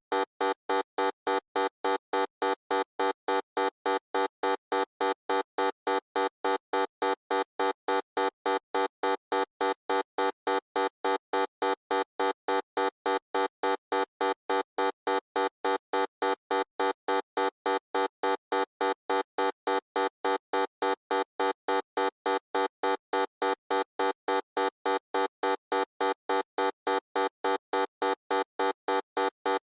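Electronic buzzer sounding in even on-off pulses, about three a second, with a harsh, unchanging buzzing tone.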